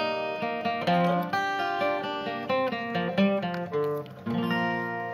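Acoustic guitar played alone without singing, picking a run of notes and chords, then ending the song on a final chord that rings out for the last second or so.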